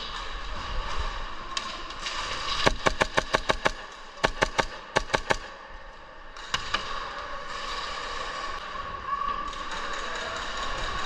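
Airsoft gunfire: a quick string of about seven sharp shots about three seconds in, then two shorter strings of shots and a couple more, over a steady background hiss.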